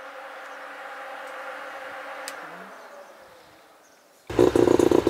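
Faint fading hum, then about four seconds in the Mazda RX7 FC's bridgeported 13B rotary engine comes in suddenly and loud, running with a rapid, choppy pulse.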